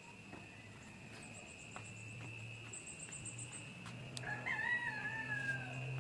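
A single drawn-out animal call, like a bird's, lasting about a second and a half near the end. It wavers at first, then slowly falls in pitch. Under it runs a steady high-pitched whine, with a quick run of faint high ticks a little before the middle.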